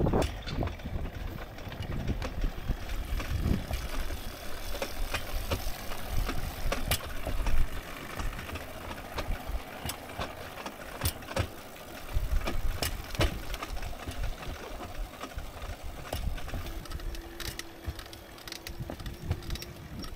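A railbike's flanged steel wheels rolling along railroad track: a steady low rumble with irregular clicks and clacks from the rails. A steady hum comes in near the end.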